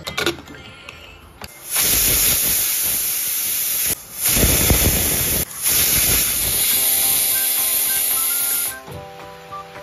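Aluminium pressure cooker whistling: steam jetting out loudly under the weight valve as a steady hiss for several seconds, broken briefly twice, the sign that the cooker has come up to pressure. Soft background music with plucked, piano-like notes comes in near the end.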